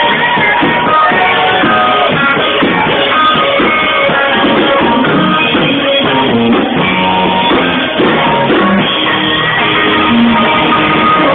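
Loud rock music with guitar, picked up through a mobile phone's microphone, its treble cut off.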